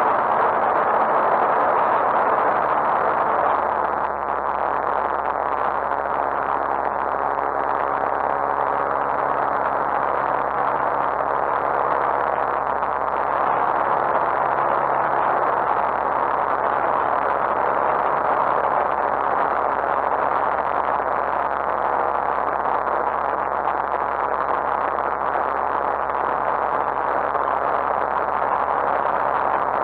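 Cockpit noise of a Lightwing GR912 light aircraft in flight: its Rotax 912 engine and propeller running steadily under a rush of airflow, heard from inside the cabin. The level eases slightly about four seconds in and then holds steady.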